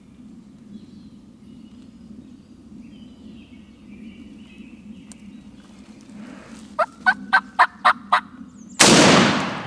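A wild turkey gobbler gobbles, a quick run of about six notes, then about a second later a single shotgun shot, the loudest sound, that rings off and fades.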